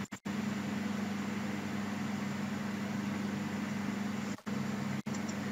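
Steady low hum with an even hiss underneath, cutting out for an instant three times.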